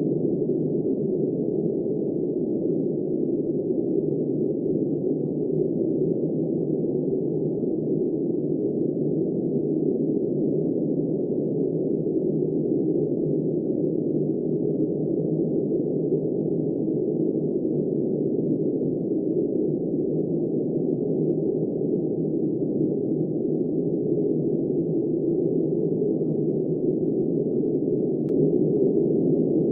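Steady, muffled rush of blizzard wind, low and dull with no hiss, swelling slightly near the end.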